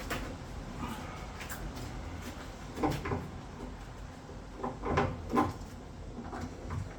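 Intermittent clunks and clicks of parts and tools being handled while stripping components from a car's engine bay, with a cluster of knocks about three seconds in and another, louder, around five seconds in.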